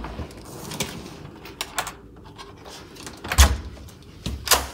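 Hotel room door being unlocked with a key card and opened: a few sharp clicks and knocks from the electronic lock and handle, the loudest, with a low thump, about three and a half seconds in.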